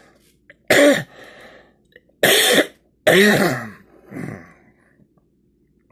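A man coughing: three loud, short coughs about a second apart, then a fainter fourth.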